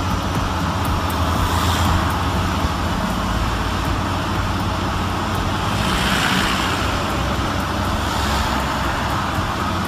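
Heavy diesel machinery running steadily: a low engine drone under a broad rushing noise that swells slightly a couple of times.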